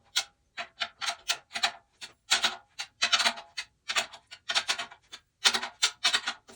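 14x8 maple/mahogany 10-lug snare drum with the snare wires engaged, struck softly over and over in an uneven pattern, about three strokes a second, each with a short rattle from the snare wires.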